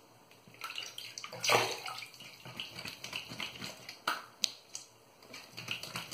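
Hands splashing water at a bathroom sink in several irregular splashes, rinsing the face after a shave, with a sharp click about four and a half seconds in.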